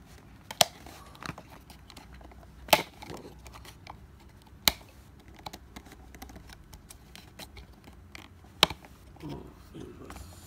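Sharp plastic clicks and knocks from fingers working a GoPro Hero5 on its plastic mounting buckle, four loud clicks spread over about ten seconds with softer ticks and light handling rustle between.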